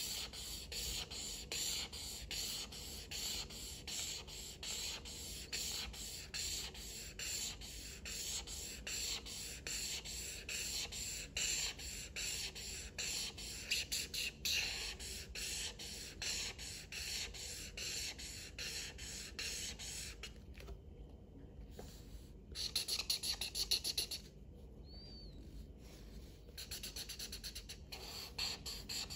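Felt-tip marker scribbling back and forth on paper: a rhythmic scratching of quick strokes, several a second, with short pauses near the end.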